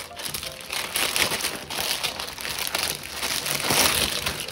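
Clear plastic packaging crinkling and rustling as hands peel it open and slide out a folded shopping bag. It grows loudest about three and a half seconds in.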